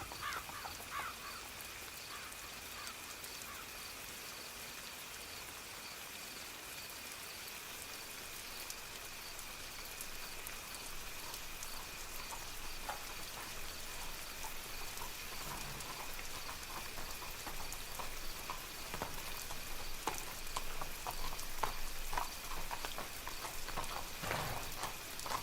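Soft, steady rain falling. A horse's hooves clip-clop away and fade in the first second or so, then approach again and grow louder over the last few seconds.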